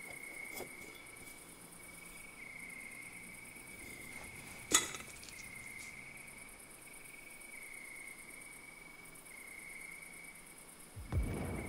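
Night ambience of crickets trilling steadily. A single sharp click comes a little before halfway, and a low thud near the end.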